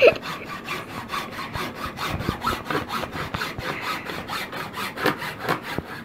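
Hand saw cutting through a wooden board with steady, repeated back-and-forth strokes.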